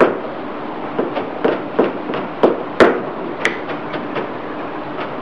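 Kitchen knife chopping a red chilli on a plastic cutting board: irregular knocks of the blade on the board, roughly one to two a second, with one sharper knock near the middle.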